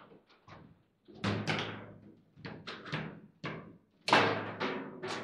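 Foosball table in play: a quick series of sharp knocks and bangs as the figures strike the ball and the rods knock against the table. The loudest bang comes about four seconds in.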